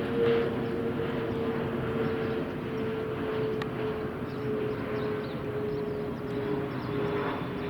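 Steady engine drone with a hum that sinks slowly in pitch, over a rushing noise.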